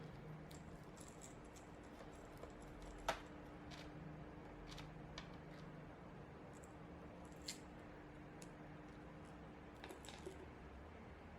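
Faint, scattered small clicks and taps, with one sharper click about three seconds in and another about seven and a half seconds in, over a low steady hum.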